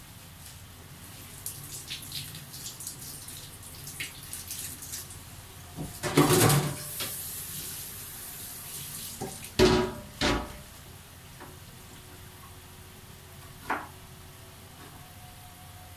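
Water sounds from a pot of crab soup boiling on a gas burner, with small clicks and bubbling, a louder burst of water noise about six seconds in, and two loud knocks a little after halfway.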